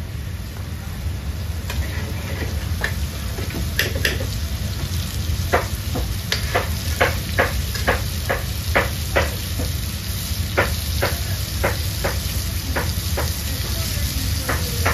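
Chopped onions sizzling in oil in a wok while a metal ladle stirs them, scraping and knocking against the wok. From about five seconds in, the ladle strikes come in a quick run, two or three a second, easing off before a last couple near the end.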